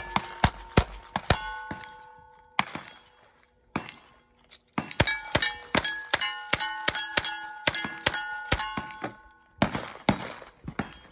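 Cowboy action shooting: a string of gunshots, each followed by the ringing of struck steel targets. First a few revolver shots, then after a short pause a fast run of lever-action rifle shots ringing steel one after another, with a short rush of noise near the end.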